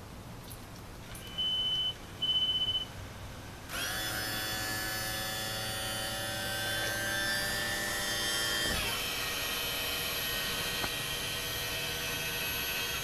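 Two short high warning beeps as the ignition is switched on, then the twin Mercury outboard engines start and run steadily at idle, the sound changing about nine seconds in.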